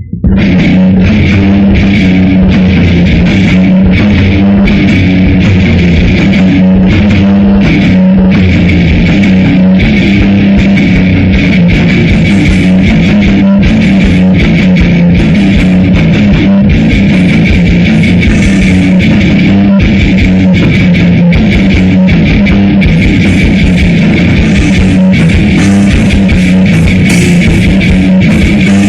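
Grindcore/death metal band playing at full volume in rehearsal: distorted electric guitars, bass guitar and drum kit. After a brief dip at the very start, the sound is a dense, unbroken wall that does not let up.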